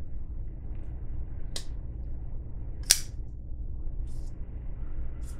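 A bearing-pivot folding knife with a tanto blade and G10 handle being worked open and closed: two sharp metallic clicks about a second and a half apart, the second the louder, as the blade snaps into place. Two fainter ticks follow near the end.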